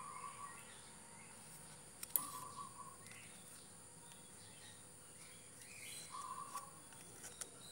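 Faint handling of a plastic netting needle, ruler and nylon twine while tying fishing-net knots: soft rustles and a few light clicks, the sharpest about two seconds in. Short bird chirps in the background, over a steady high tone.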